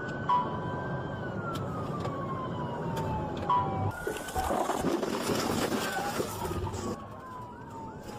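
A police cruiser's electronic siren wails in slow falling sweeps over engine and road noise, with two short stepped beeps in the first half. Around the middle, a burst of hiss runs for a few seconds.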